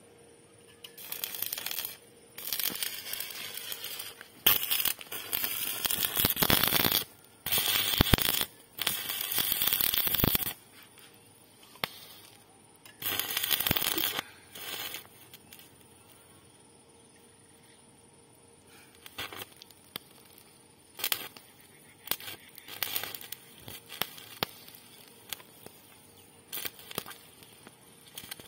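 Stick (arc) welding on a steel pipe joint: the arc crackles and sizzles in several runs of one to three seconds through the first half, then only brief, scattered crackles.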